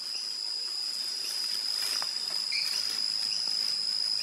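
Insects trilling in a steady, unbroken high-pitched chorus, with fainter, higher tones above it over a light hiss.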